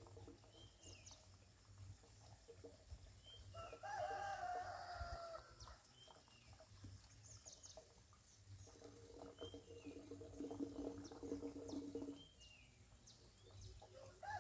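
A rooster crows once about four seconds in, over short falling chirps from a small bird every couple of seconds and a high pulsing buzz. A lower, steady sound of about three seconds follows later.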